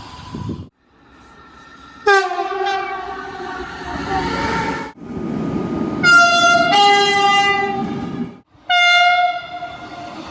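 Train horns sounding in a run of short clips cut one after another: a multi-note chord horn blows about two seconds in, a longer blast that shifts pitch partway follows, and another blast starts near the end, over the rumble of a moving train.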